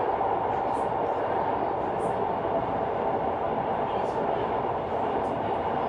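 Steady running noise inside a moving cable car cabin, an even mechanical rumble and hum with a few faint light ticks.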